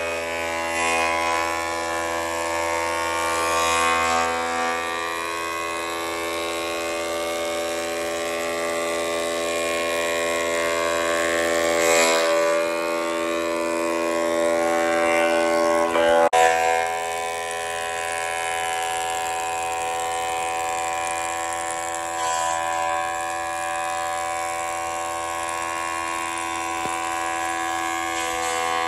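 General International thickness planer running and planing a white pine board, a steady motor and cutterhead whine. The tone shifts a little about halfway through, as the load on the cutterhead changes.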